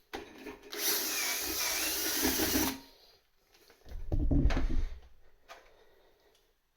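Electric drill with a small bit running for about two seconds, drilling through the remains of a pedal-cover rivet, followed a little later by a low rumbling bump lasting about a second.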